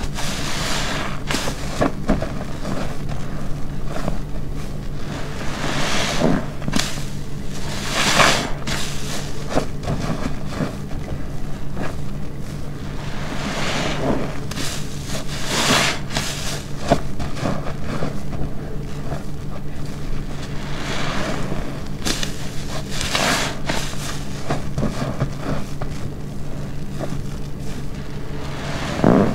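Wet car wash sponge soaked with shampoo being squeezed and released again and again, squelching with each squeeze every second or two, over a low steady hum.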